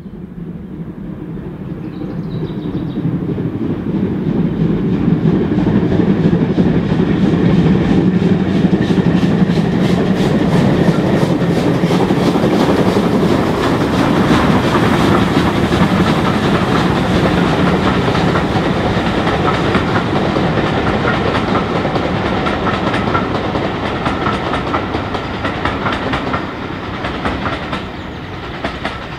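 Steam tank engine and its passenger coaches passing on the line: the rumble and clatter of wheels on the rails, with the beat of the engine's exhaust, builds up over the first few seconds, stays loud, then begins to fade near the end.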